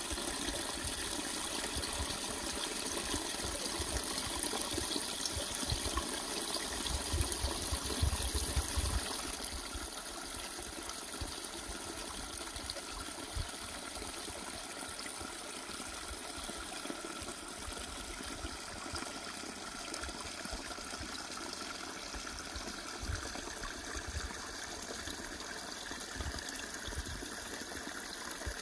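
Small woodland stream trickling and gushing over stones and branches, a steady rush of water; it is a little louder, with some low rumbles, for the first nine seconds or so.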